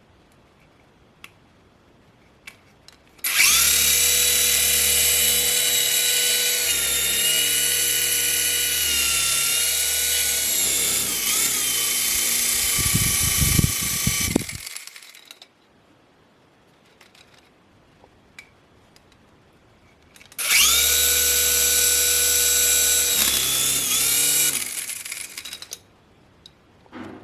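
Electric motor of a radio-control toy helicopter whining as it spins the rotors, in two runs: a long one starting a few seconds in and a shorter one later. The pitch rises at each start and shifts slightly during each run.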